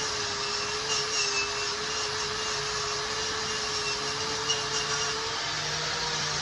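Power grinder fitted with a wire wheel, running steadily while it brushes weld scale and rust off steel. It gives a constant motor whine with a scratchy brushing noise over it.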